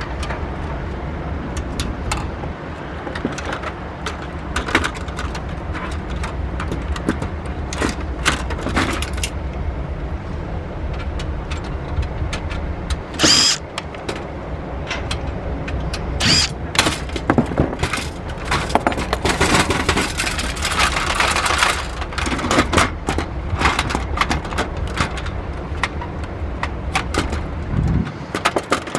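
Clicks, knocks and scraping of metal and plastic parts and tools as a DVD recorder is taken apart, with a couple of sharper metallic clinks, over a steady low rumble.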